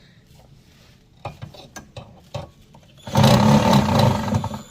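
A screw being driven into the TV stand's bracket with a screwdriver: a few light clicks and knocks, then about three seconds in, a loud burst of mechanical noise lasting about a second and a half.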